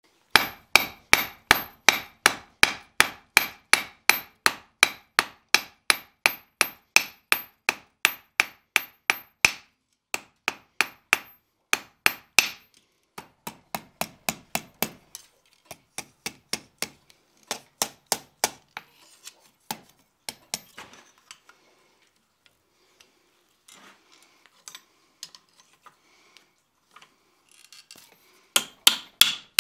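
Hand hammer striking a hot 1/4-inch square steel bar on an anvil, at a steady pace of about three ringing blows a second for the first ten seconds. The blows then become sparser and lighter, give way to quieter scraping and clinking of metal, and end with a quick run of taps.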